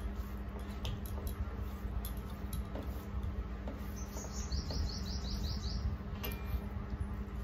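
Hands squishing and mixing rice on steel plates, with faint scattered clicks, over a steady low hum. About four seconds in, a bird gives a quick run of about seven high chirps.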